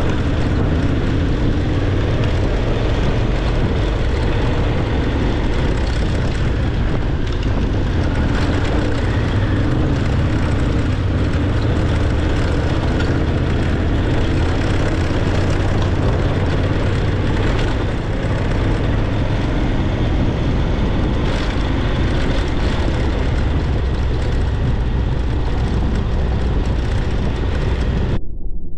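Motorcycle engine running steadily under way, mixed with wind and tyre noise on gravel, heard on the bike's onboard camera. The sound cuts off abruptly near the end.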